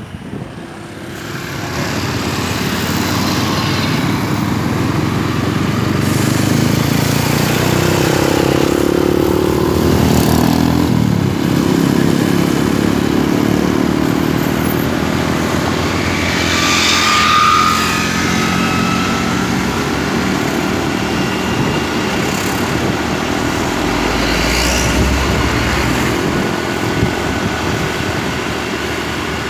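Motorcycle engine running on the move, its pitch rising and falling with speed, with other road vehicles passing close by.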